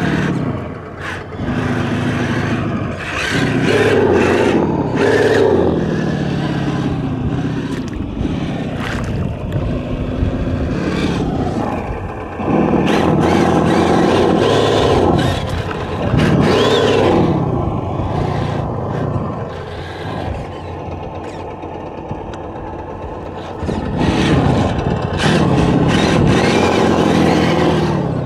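Traxxas TRX-4 RC crawler's electric motor and geartrain whining, the pitch rising and falling as the throttle is worked, with clicks and scrapes as the tyres and chassis climb over debris. The whine eases off and picks up again a few times.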